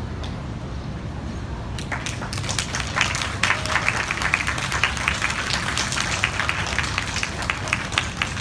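Audience clapping, starting about two seconds in as a steady patter of many hand claps.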